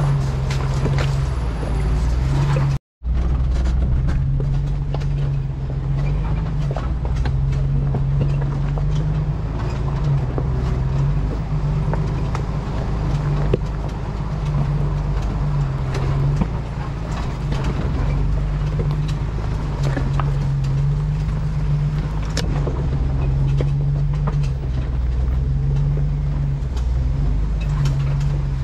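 Jeep crawling over a rocky off-road trail: the engine runs low and steady, with scattered knocks and crunches of tyres and chassis on rock.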